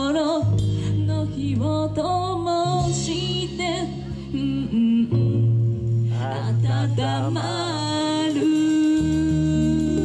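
Live J-rock band music: a woman sings lead with a wavering, held melody over sustained keyboard chords, bass and electric guitar.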